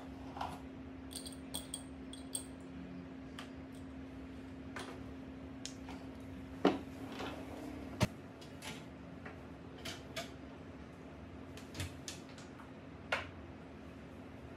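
Scattered light clicks and knocks of small objects being picked up and set down, the sharpest about a third, halfway and near the end, over a steady low hum.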